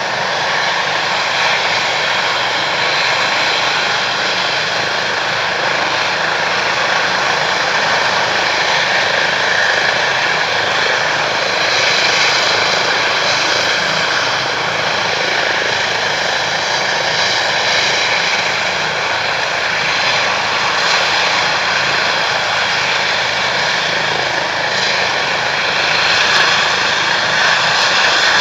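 Emergency medical helicopter's turbine engines and rotor running loud and steady: a rushing noise with several steady whining tones on top, swelling slightly now and then.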